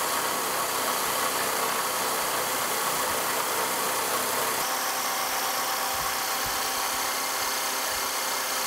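Wells-Index vertical milling machine spindle running a 1-inch end mill on power down-feed, plunging steadily through steel like a boring bar, with the hiss of mist coolant. The cutting sound changes slightly about halfway through.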